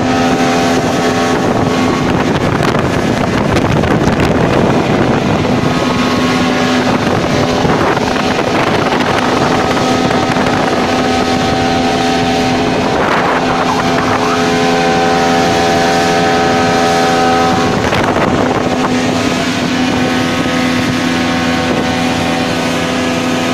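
Small tour boat's engine running steadily under way, a constant drone with wind and water rush over it.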